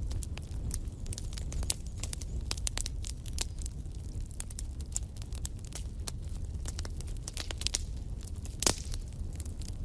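Wood fire in a fireplace crackling and popping: frequent irregular snaps over a steady low rumble of the flames, with one louder pop near the end.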